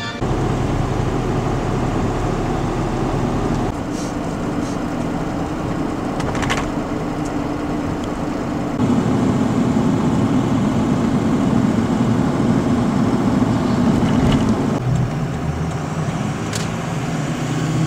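A vehicle on the road: steady engine and road noise, low and continuous, whose tone shifts abruptly three times.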